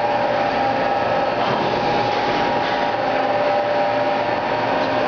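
Steady running hum of shop machinery: an even noise with a couple of steady whining tones held throughout.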